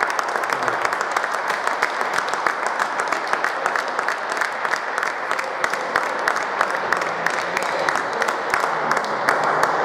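Applause: many hands clapping steadily and densely.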